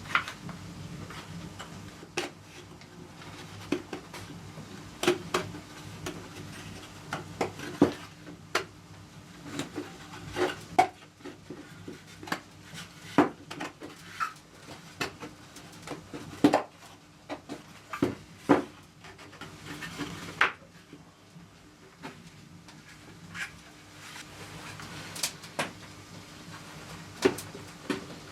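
Irregular light clicks and knocks of hard objects being handled and set down, over a steady low hum.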